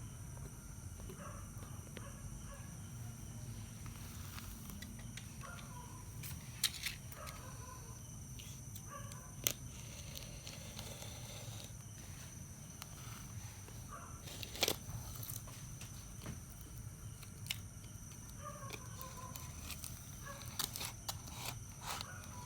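Scattered sharp clicks and knocks of a package being opened by hand, over a steady low background and faint bird calls.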